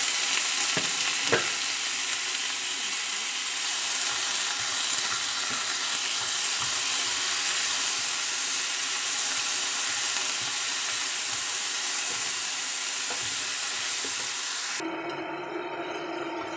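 Tomato wedges, onion and ginger sizzling steadily in a little hot oil in a pan, stirred with a wooden spatula that knocks a few times against the pan early on. The sizzling drops away abruptly near the end.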